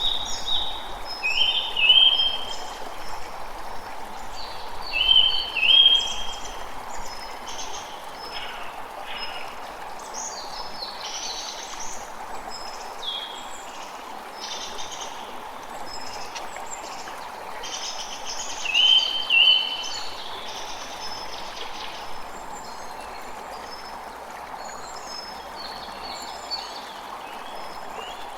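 Forest ambience: several birds calling and singing over a steady rush of noise. The loudest calls are short paired chirps that come three times, about 2, 5 and 19 seconds in.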